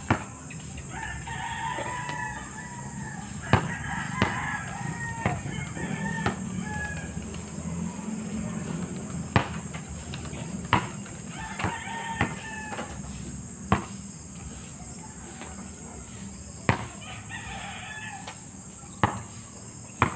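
A rooster crowing several times, each call lasting a second or two, over a steady high insect drone. A basketball bounces on an asphalt court at irregular intervals; these bounces are the loudest sounds.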